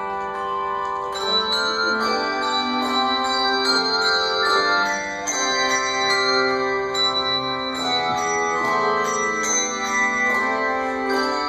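Handbell choir playing a piece: many tuned handbells struck in chords and melody, each note ringing on and overlapping the next.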